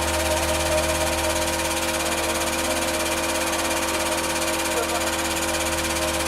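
Hydraulic press's pump and electric motor running steadily, a constant hum and whine with no crack or bang.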